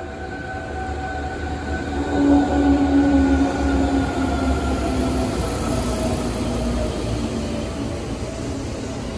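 Seibu 2000 series electric commuter train running into the platform: wheels rumbling on the rails and a motor whine that falls slowly in pitch as it slows. It is loudest as the leading cars pass, about two to three seconds in.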